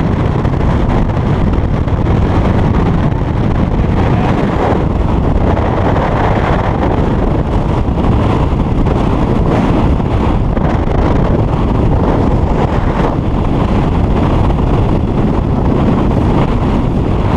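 Speedboat under way with its 400 hp Mercury outboard running steadily, heavy wind buffeting the microphone over the engine noise.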